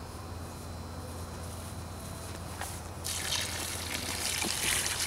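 Water starts running from a garden hose about three seconds in, splashing and trickling onto dry concrete mix in a plastic wheelbarrow: the hose's solar-powered pump has begun delivering water.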